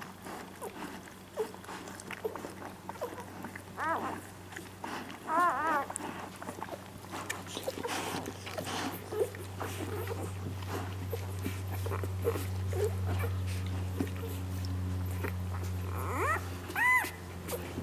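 One-day-old Labrador retriever puppies nursing: short high squeaks and whimpers, a quick run of them about five seconds in and more near the end, over faint clicking suckling sounds. A low steady hum sets in about halfway through.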